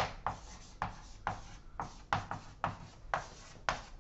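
Chalk writing on a blackboard: a quick run of short taps and scrapes, two or three strokes a second.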